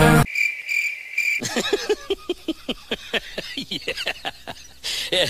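Comedy sound-effect insert: a second of cricket chirping, then a fast run of short falling, cackling cries, about five a second, that fade out toward the end.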